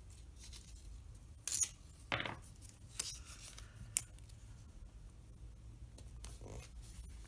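Paper washi tape being pulled off its roll and torn by hand: a few short rasping rips in quick succession, then a single sharp click, with soft rubbing as the strip is handled and pressed onto the page.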